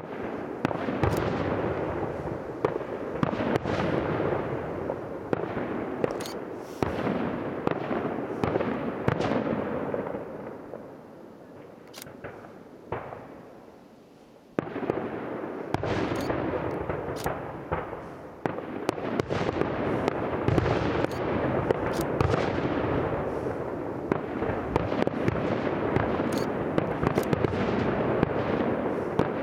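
Aerial fireworks display: shells bursting in quick succession with crackling. The bursts thin out a little before halfway, then start again abruptly and build to dense volleys near the end.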